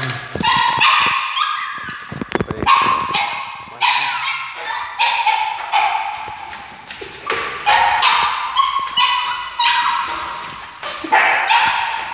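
A small dog giving high-pitched yelps and whines again and again, wild with excitement at going out for a walk on its leash. A few knocks sound about two seconds in.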